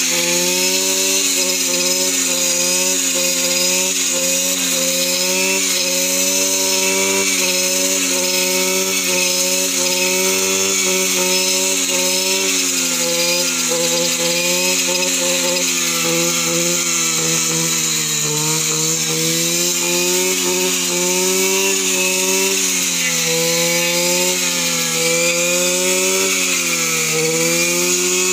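Petrol brush cutter engine running steadily while cutting grass, its pitch sagging briefly a couple of times.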